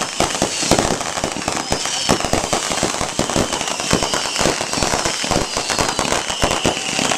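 Fireworks going off in rapid succession: a dense string of sharp bangs and crackles with whistles falling in pitch.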